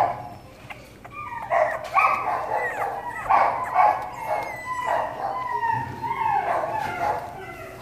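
Puppy whining and yipping: a run of short, high calls, some sliding down in pitch, about one a second, starting about a second in.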